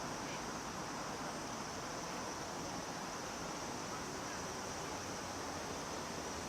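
Cicadas calling in a steady, unbroken chorus, a high sizzling drone over an even background rush.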